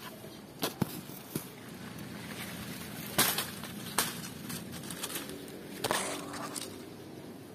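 Leaves and twigs being handled close to the microphone: rustling with a series of sharp, sudden crackles, the loudest about three seconds in, others at about four and six seconds.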